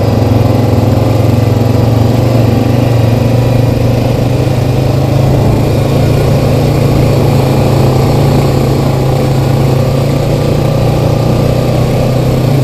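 Single-cylinder ATV engine running at a steady speed while the quad rides along a dirt trail, heard close up from on the machine.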